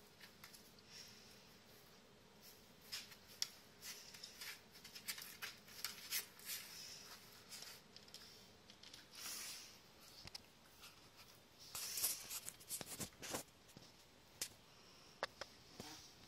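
Irregular light clicks and scratches of dogs' claws on a hardwood floor and fur rustling as an adult West Highland white terrier and a puppy play-wrestle, with a few short breathy rustles.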